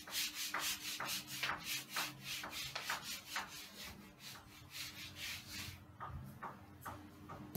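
Handheld eraser wiped back and forth across a whiteboard in quick rubbing strokes, about four a second, thinning to a few scattered strokes near the end.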